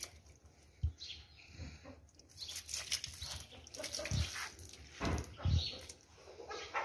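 Water poured and splashed in spurts from a plastic bottle onto the wet soil of a clay plant pot, with a few dull bumps from handling.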